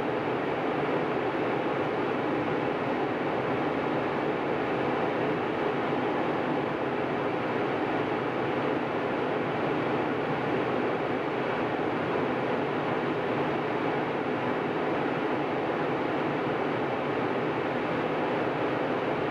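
Airliner cabin noise in flight: a steady, unbroken rush of engine and airflow noise heard from inside the cabin.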